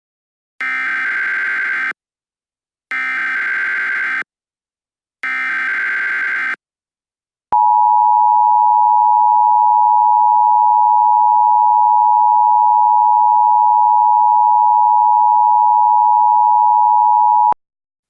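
Emergency Alert System signal: three short bursts of screechy digital header data (SAME code), about a second apart, then the steady two-tone EAS attention signal held for about ten seconds before it cuts off sharply.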